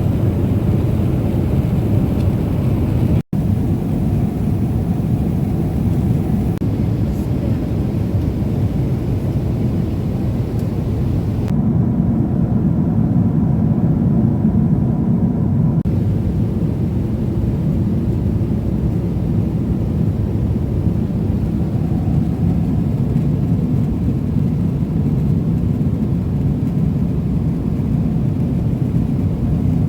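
Steady low roar of a Boeing 777-300ER's GE90 jet engines and airflow heard inside the cabin. There is a brief cut in the sound about three seconds in.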